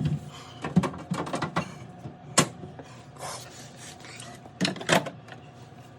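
Scattered knocks and clicks with rubbing, scraping sounds between them as refrigerator drawers and fittings are handled; the sharpest knocks come about 2.5 s in and as a pair near the end.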